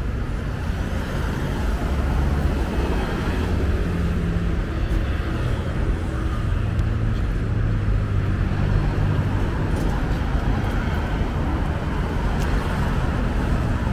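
Road traffic on a busy street: a steady, continuous low rumble of passing cars and pickup trucks.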